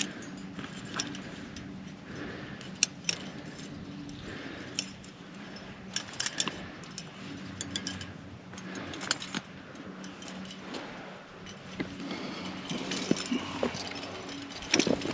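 Metal climbing gear jangling and clinking: carabiners and cams on a trad rack knocking together as the climber moves and handles a quickdraw, in irregular sharp clicks that come thicker near the end.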